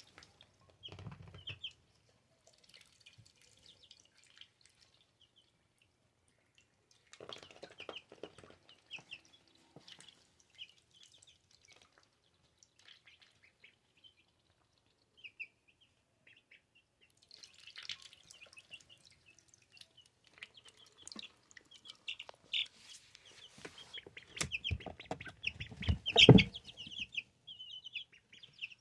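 Two-week-old ducklings peeping in short, high chirps, many of them, denser in the second half. Bursts of noise come in between, the loudest about 26 seconds in.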